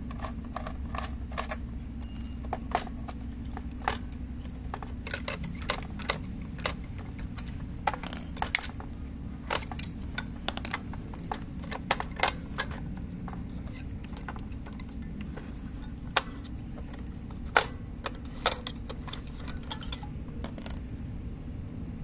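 Irregular sharp clicks and taps of hard plastic and batteries as a toy's battery compartment is opened and the batteries are taken out, with a pause of a few seconds in the middle, over a steady low hum.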